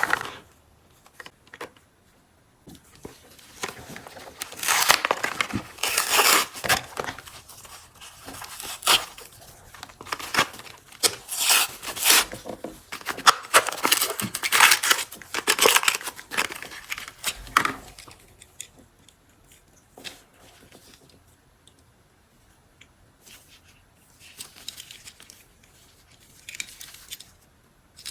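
Cardboard-and-plastic packaging of a Hot Wheels diecast car being torn open and crinkled by hand, in irregular bursts for about fifteen seconds, then lighter rustling and handling near the end.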